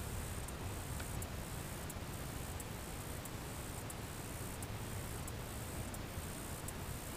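Quiet outdoor background: a steady hiss with a fluctuating low rumble, faint high ticks repeating about every two-thirds of a second, and one faint click about a second in.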